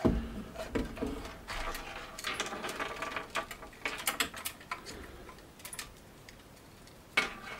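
Small plastic desktop speaker set down on a wooden desk with a low thud, then its thin cable handled and dragged about, making many small clicks and rustles that thin out after about five seconds, with one more click near the end.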